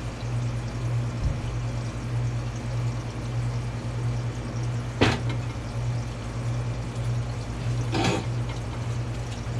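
Steady low hum, with a sharp knock about five seconds in and a second, rougher knock about three seconds later.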